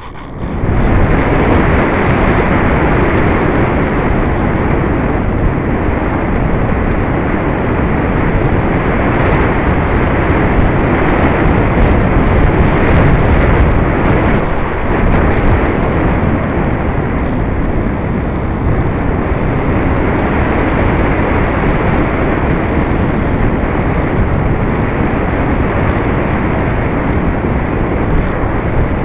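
Steady rush of airflow noise on the onboard camera microphone of a Skysurfer foam RC plane in flight, coming up quickly about half a second in and then holding steady, with a faint high steady whine above it.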